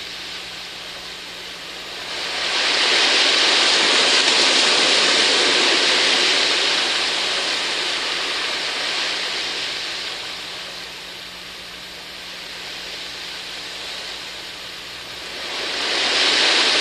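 Marpac Rohm portable sound machine playing its surf sound: a rushing noise of waves that swells up about two seconds in, slowly fades, then swells again near the end.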